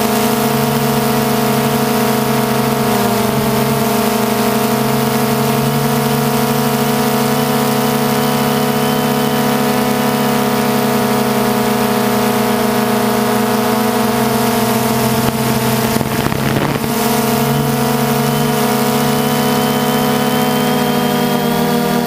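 DJI Phantom 2 quadcopter's four electric motors and propellers humming steadily, picked up by the GoPro camera mounted on the drone. The drone hum holds an even pitch, with a brief rough patch about sixteen seconds in and a slight rise in pitch near the end.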